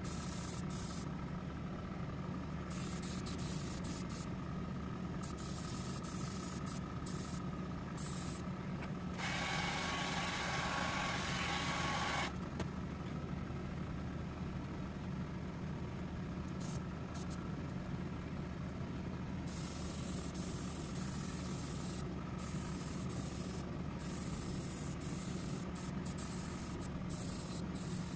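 Airbrush spraying paint in on-off stretches of hiss, one longer and louder in the middle, over the steady hum of a spray booth's extraction fan.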